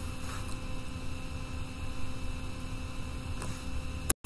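Steady electrical mains hum with background hiss from the recording setup. About four seconds in there is a sharp click and a brief dropout to silence at an edit cut.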